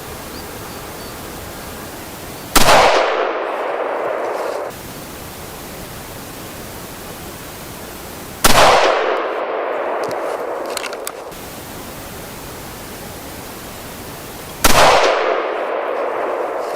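Three shots from the .222 Remington rifle barrel of a Valmet 412 combination gun, about six seconds apart, fired as a group to check the zero of its red dot at 100 metres. Each shot is a sharp crack with an echo dying away over about two seconds, over a steady hiss.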